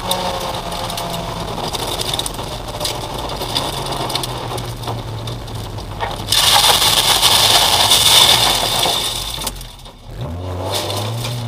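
Race car engine heard from inside the cabin. About six seconds in, a loud gritty rush of gravel and dirt hitting the underside of the car takes over for about three seconds as the car ploughs into the gravel trap. It dies away, leaving the engine running low.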